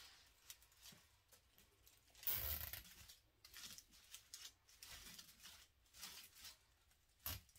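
Dry grapevine wreath forms being handled, faint rustling and crackling of the twigs, with a louder scrape about two and a half seconds in and a sharp click near the end.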